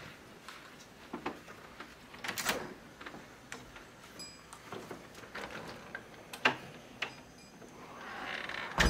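Scattered clicks and knocks from footsteps and a house door being opened, with a louder knock about two and a half seconds in and a loud thump at the very end.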